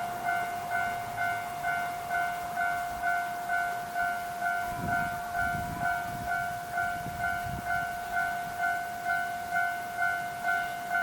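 Japanese railway level-crossing warning bell ringing steadily, about three dings every two seconds. A few low rumbles come about halfway through.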